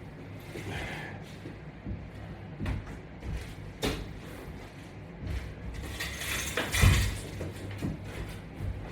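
Exercise mat and workout gear being moved and set in place: scattered knocks and clicks, with a louder scraping rustle about six to seven seconds in.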